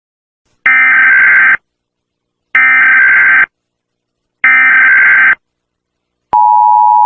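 Emergency Alert System SAME header: three loud bursts of digital data screech, each about a second long and a second apart. About six seconds in, the steady two-tone EAS attention signal begins.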